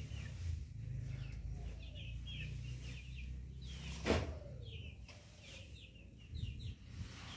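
Chicks peeping over and over in short, falling chirps, several a second. A single sharp knock comes about four seconds in.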